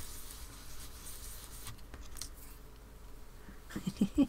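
Foam blending brush scrubbing ink through a stencil onto card stock, a faint soft rubbing, with a few short soft knocks near the end.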